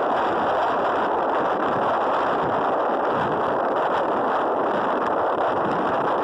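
Steady rushing of wind on the microphone of a camera moving along a road, an even noise with no breaks or tones.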